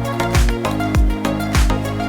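Electronic background music with a steady kick-drum beat, about two and a half beats a second, over held bass notes and chords.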